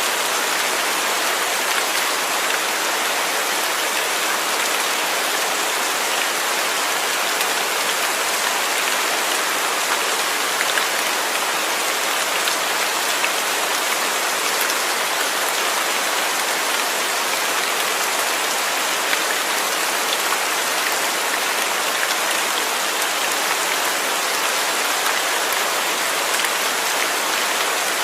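Steady rain falling, a dense, even hiss of drops with occasional faint individual drop ticks.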